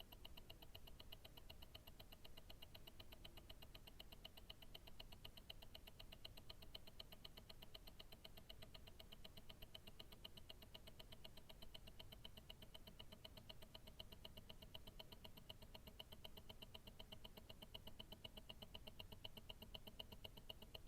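Invicta Grand Octane tourbillon watch movement ticking, heard through a stethoscope: a faint, fast, perfectly even ticking of the escapement.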